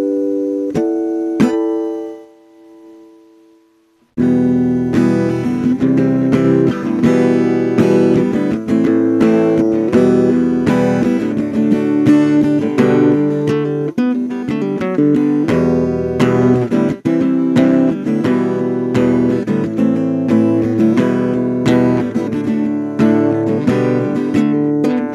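Acoustic guitar playing a blues intro: a single chord is struck and left to ring out and fade, then steady strumming starts about four seconds in and carries on.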